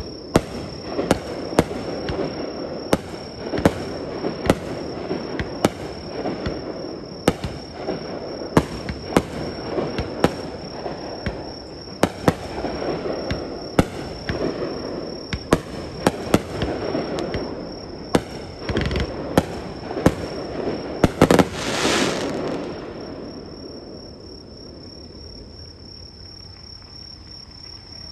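Fireworks display: sharp bangs of bursting shells, several a second, over continuous crackling. A dense, loud volley comes about twenty-one seconds in, then the bangs stop and only a faint crackle remains.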